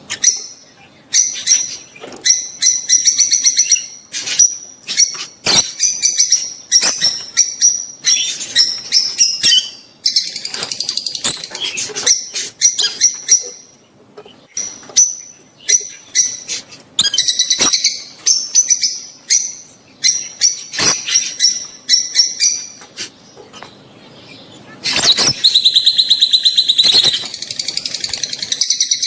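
Lovebirds (peach-faced and Fischer's) giving shrill, rapid chirping calls in repeated bursts, with a longer, louder spell of chattering near the end. These are their mating calls.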